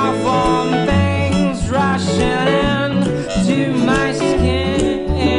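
Background music: a song with a singing voice over a steady, repeating bass line.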